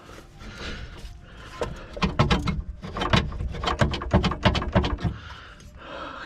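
A quick series of sharp knocks and clicks, about four a second, starting under two seconds in and lasting about three seconds: hand work on the car's rear suspension while a new strut is fitted.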